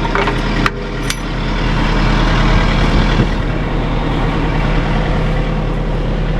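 Tractor engine running steadily, with a couple of sharp metal clicks about a second in. The engine grows a little louder and fuller about a second and a half in.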